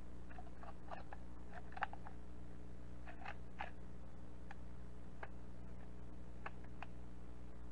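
Scattered light clicks and taps of an AKM rifle's metal parts as it is handled, over a steady low hum.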